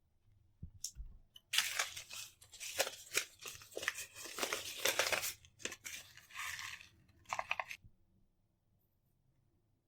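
Plant stems and leaves being pulled and torn by hand, a run of rustling, tearing and crunching lasting about six seconds, preceded by a couple of faint clicks.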